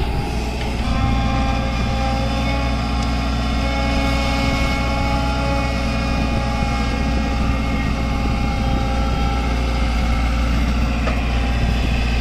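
Tata Hitachi Zaxis 120H excavator's turbocharged Isuzu diesel engine running steadily under hydraulic load as the machine swings, digs into the pile and lifts a loaded bucket.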